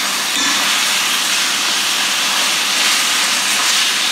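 Beef tenderloin sizzling steadily in hot oil in a frying pan as it is seared and turned with tongs.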